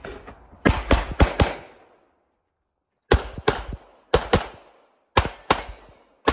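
Semi-automatic pistol shots on a practical-shooting course of fire, about ten in all. A fast string of four comes about half a second in; after a pause, pairs of shots follow about a second apart, each with a short echo.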